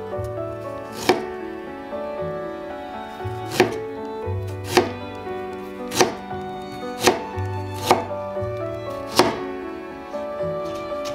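Kitchen knife slicing fresh ginger on a plastic cutting board: about seven sharp knocks of the blade hitting the board, a second or so apart, with a few fainter cuts between. Background music with held notes and a bass line plays underneath.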